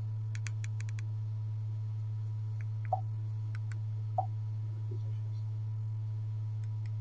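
Small plastic button clicks: a quick run of about half a dozen in the first second, a few more around three seconds in, and two short, slightly louder knocks near three and four seconds in, over a steady low hum.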